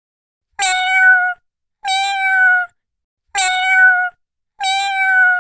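Domestic cat meowing four times, evenly spaced about 1.3 s apart, each meow a steady, fairly high call that dips slightly in pitch at its end.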